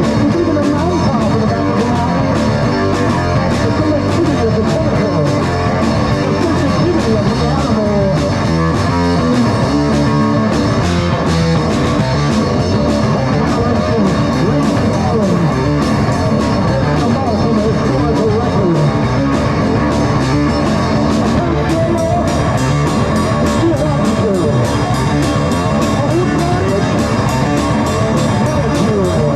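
Rock music from a band: electric guitar over a steady drum beat.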